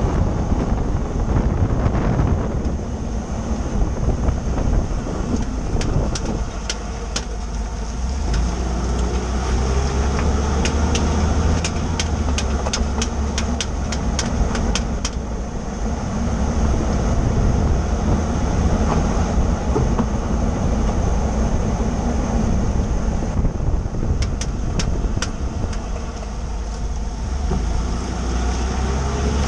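2013 Ford F-150 EcoBoost's twin-turbo V6 running, with runs of sharp clicking from under the truck, about three clicks a second. The clicking stops and starts several times; its cause is unknown.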